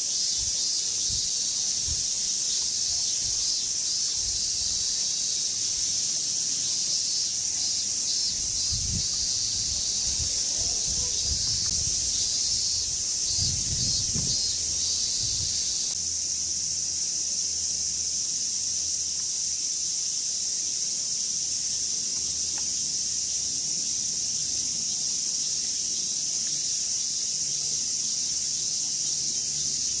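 A chorus of cicadas buzzing steadily and shrilly, with a few low rumbles partway through.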